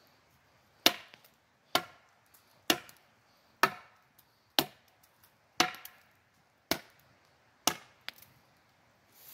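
Eight sharp chops, about one a second, of a curved bushcraft sickle blade striking wood.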